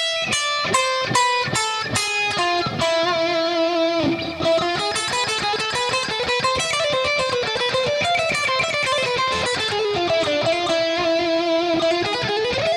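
Jackson Dinky JS32 electric guitar playing E Phrygian dominant licks: separate picked notes at first, then from about four seconds in a fast run of notes, ending on held notes with vibrato.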